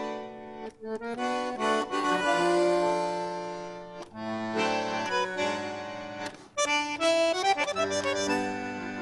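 Bandoneon playing tango: sustained reedy chords in phrases, broken by short breaths in the bellows about half a second, four and six and a half seconds in.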